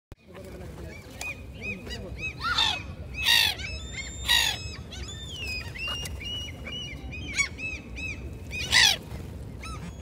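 A flock of black-headed gulls calling: four loud harsh screeches among a run of short, repeated higher calls, over a low steady rumble.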